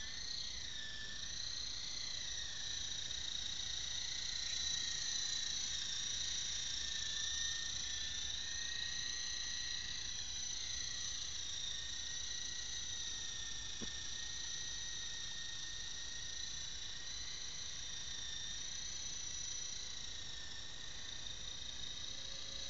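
Small radio-controlled helicopter's motor and rotor running at speed as it lifts off and flies: a steady high-pitched whine of several tones that waver slightly in pitch.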